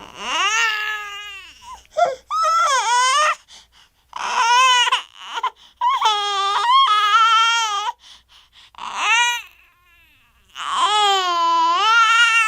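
A cartoon toddler character's crying sound effect: about six loud, high-pitched wails broken by short gasping pauses, the pitch wavering within each cry.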